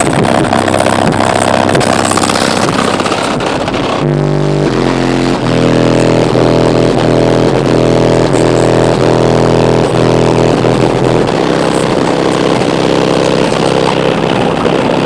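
Very loud bass-heavy music from a car audio system's wall of four Sundown Audio 12-inch subwoofers, the low notes so heavy the recording is distorted and rumbling. The bass notes change in steps, notably about four seconds in and again near eleven seconds.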